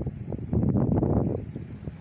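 Wind buffeting the microphone outdoors by the sea as an uneven low rumble, swelling into a louder gust about half a second in that eases off after about a second.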